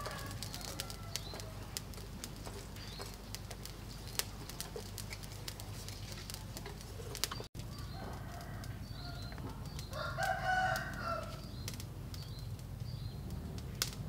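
A rooster crowing once, about ten seconds in, with a weaker call shortly before it, over a low steady background.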